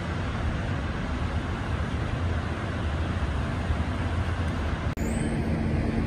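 Steady low rumble of a ship's machinery on deck, with a noisy hiss over it. It drops out for an instant about five seconds in, and a steady hum joins after.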